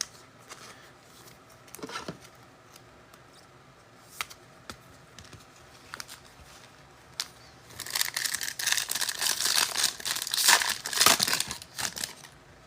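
A few light clicks and taps, then, about eight seconds in, a foil trading-card pack wrapper torn open and crinkled for several seconds.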